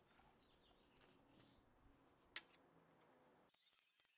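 Quiet handling of an old electric motor and its parts on a towel, with one sharp click a little over two seconds in and a few fainter ticks.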